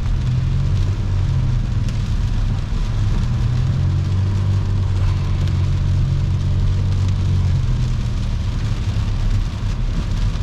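Steady cabin noise of a car driving at highway speed on a wet road in the rain: a low drone from engine and tyres with a constant hiss of water off the tyres.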